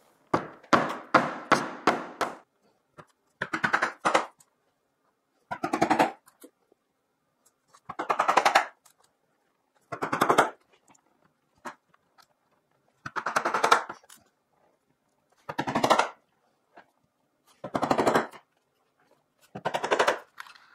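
Claw hammer tapping half-inch brads into the pre-drilled hardboard backing of a mirror frame: short runs of quick light taps, one run about every two seconds, with a longer run at the start.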